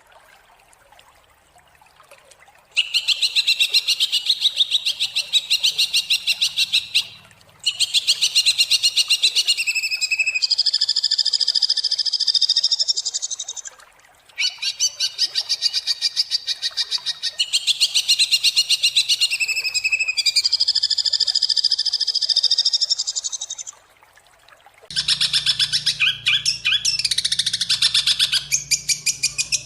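Greater green leafbird (cucak hijau) song of harsh, rapid 'tembakan' phrases: dense runs of fast repeated high notes, each run lasting several seconds with short breaks between. It starts about three seconds in, and near the end the phrases turn wider and harsher over a low hum.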